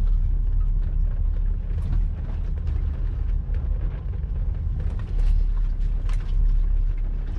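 Cabin sound of a diesel BMW X5 (E70) driving slowly: a steady low rumble of engine and road noise, with light scattered clicks over it.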